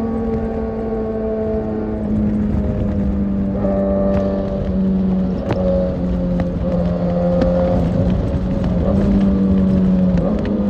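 Kawasaki Ninja ZX-6R inline-four engine running at a steady highway cruise, its pitch holding nearly level with small shifts up and down as the throttle changes.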